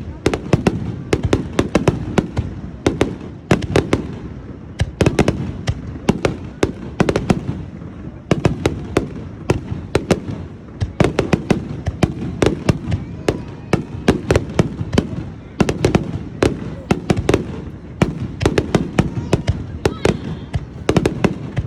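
Aerial fireworks going off in rapid succession: many sharp bangs and crackles a second, one after another without a break, over a low rumble.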